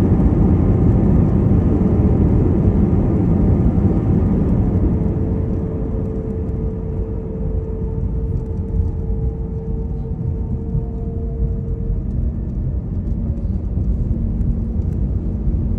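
Airbus A321neo heard from inside the cabin during the landing rollout: a heavy rumble of wheels and engines that eases off partway through. Steady engine tones slowly fall in pitch as the engines spool down and the aircraft slows.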